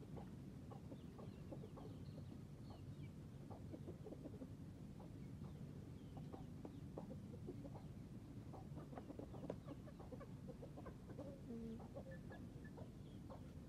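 Faint, scattered short calls of birds over a low steady background rumble.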